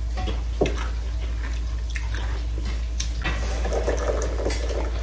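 Eating at a table: scattered small clicks and taps of utensils against a dish, with chewing, over a steady low hum.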